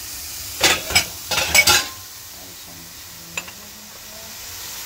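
A spoon stirs a small glass mug of saffron steeping in boiling water, with a quick run of clinks and scrapes against the glass in the first two seconds. After that a steady low sizzle comes from chopped onions cooking dry in a pan on a gas burner, with one light tick midway.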